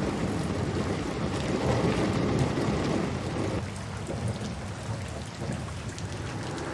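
Steady rain with a low rumble of thunder, the whole gradually growing softer.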